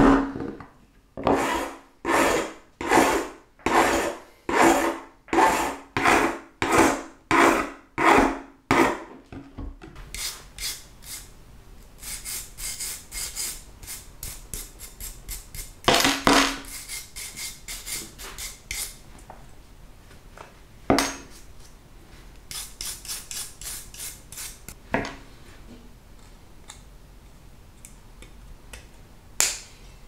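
A plastic-faced mallet taps a folding pocket knife on a wooden bench, about two knocks a second for ten seconds. Then a wire brush scrubs the knife's chequered plastic handle in quick scratchy strokes, followed by a few separate sharp clicks.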